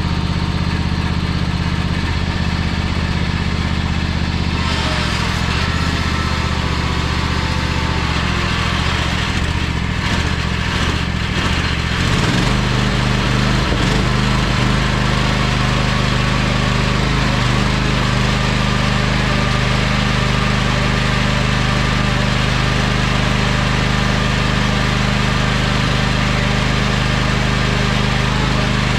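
Riding lawn mower engine running hard during an attempted burnout, its drive wheels only turning slowly instead of spinning. The engine note wavers, changes about twelve seconds in, and then holds steady.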